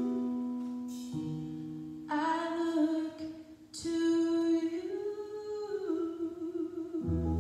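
Slow music on a Korg electronic keyboard, sustained chords with a new one struck about a second in and another near the end, and a woman's voice holding long notes over them from about two seconds in.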